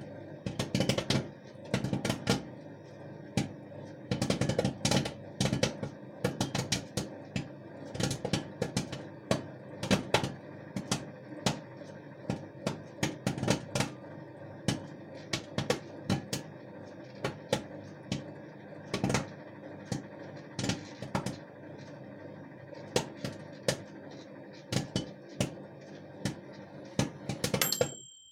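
Popcorn kernels popping irregularly inside a running microwave oven, over the oven's steady hum. Near the end the oven stops and gives a short beep.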